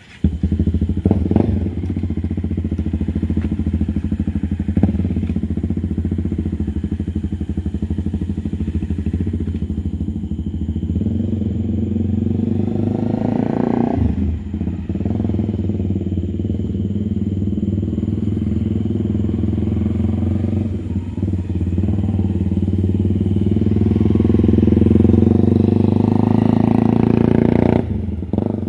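Honda CBR300R's single-cylinder engine running under load, rising and falling in pitch several times as the rider pulls away and works through the gears.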